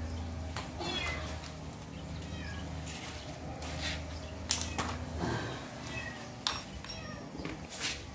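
Sharp metal clicks and knocks as a small reverse gearbox and its cable are handled and positioned, the loudest about four and a half seconds in and a few more near the end. Under them runs a steady low hum, with short high falling animal calls now and then.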